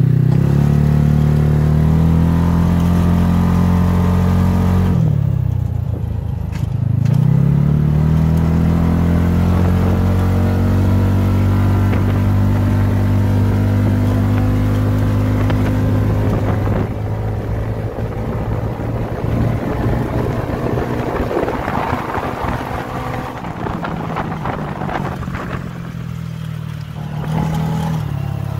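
Engine of a Predator 400cc four-seat UTV driving, its pitch rising as it pulls away, dropping and climbing again about six seconds in, then holding steady. Over the second half the engine note is less even and mixed with more noise, and it rises again near the end.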